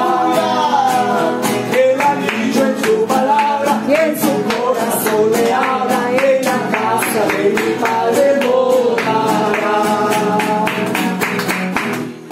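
Live singing of a Spanish-language Christian song, accompanied by a strummed acoustic guitar.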